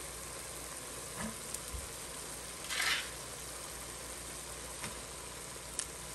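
Browned Italian sausage sizzling steadily in an enamelled cast-iron Dutch oven, with a louder rush of sizzle about three seconds in as chopped onion goes onto the hot meat, and a few light knocks.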